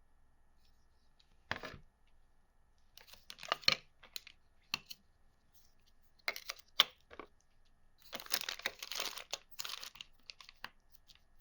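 Board game packaging being handled: crinkling and tearing of wrapping in scattered bursts, with a few sharp clicks and a longer crinkle of about two seconds near the end.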